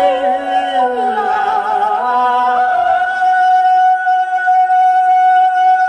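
Vietnamese song with singing and instrumental backing, played loud for the dance. The melody moves for the first few seconds, then settles into one long held note from about halfway through.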